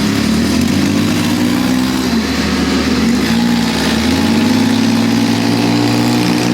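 ATV engine running under a rider's throttle, its pitch rising and falling several times as it speeds up and eases off.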